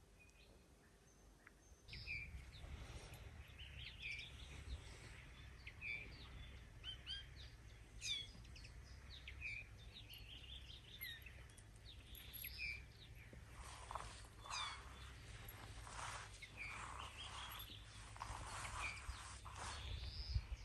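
Small birds chirping and calling in many short, quick notes over a steady low rumble. The sound comes in about two seconds in.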